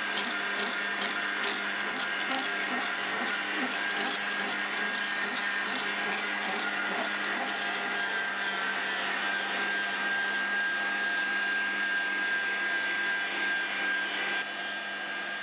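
Electric meat grinder running steadily as it grinds cooled boiled chicken breast, with small clicks in the first half; the sound drops a little near the end.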